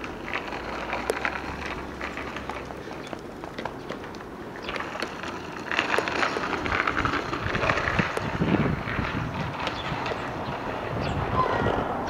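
Small children's footsteps scuffing on asphalt and a child's bicycle with training wheels rolling, with wind buffeting the microphone in the first few seconds.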